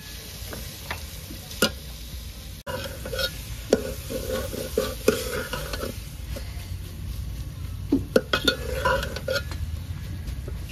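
Potato samosa filling being stirred and mixed in a pot of spiced masala over the heat, the spoon clicking and scraping against the pot at irregular moments, with light sizzling underneath.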